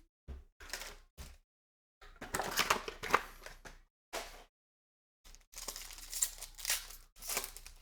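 Trading-card wrappers crinkling and tearing in several short bursts as a card box and its packs are opened.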